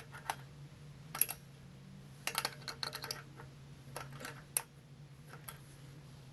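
Scattered light metallic clicks and taps from a hand tool working on a Yamaha TTR-110 dirt bike's kickstand mount as the kickstand is taken off, with a quick run of clicks two to three seconds in. A steady low hum sits underneath.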